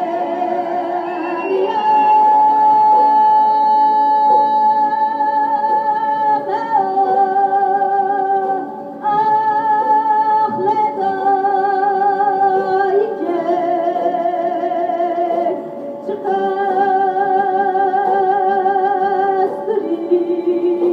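A woman singing a Kurdish folk song live over plucked-string accompaniment. She holds long notes with a wavering vibrato, in phrases that break briefly about nine and sixteen seconds in.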